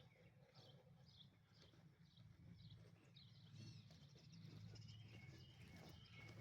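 Faint bird chirping: a short high call repeated about twice a second, over a low steady hum.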